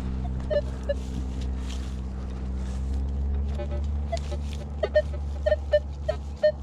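Metal detector giving short repeated beeps in the second half as the coil is swept again, over a steady low hum that fades partway through.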